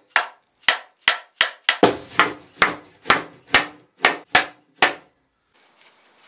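Mallet blows knocking a wooden rocking-chair frame apart at its loose joints: about fourteen sharp wooden knocks in quick, uneven succession, stopping about five seconds in.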